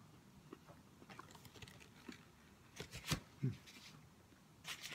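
Quiet sounds of a man taking a bite of a soft tamale and chewing it: scattered light clicks and taps of a utensil, a sharper click about three seconds in, and a brief low murmur of the voice just after.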